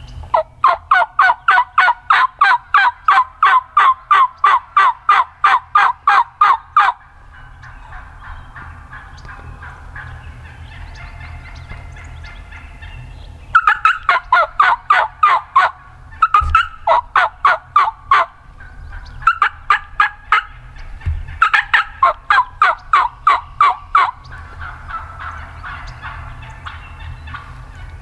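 Turkey yelps in long runs of evenly spaced notes, about four a second: one run of about six seconds, then after a pause four shorter runs close together.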